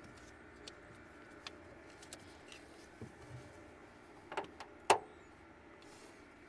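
A portable jump starter box being handled: scattered light clicks and knocks over a faint steady background, the loudest two sharp clicks about four and a half and five seconds in.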